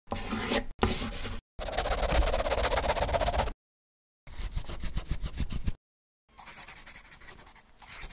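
Pen scribbling on paper in five stretches of rapid scratching strokes with short pauses between them; the last stretch is quieter.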